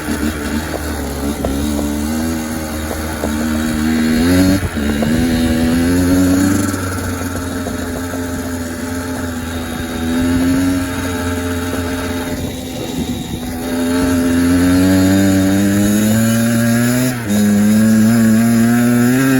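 Kawasaki KX85's single-cylinder two-stroke engine, freshly rebuilt, running hard as the dirt bike is ridden, its pitch climbing in repeated runs and dropping back at gear changes about four and a half and seventeen seconds in.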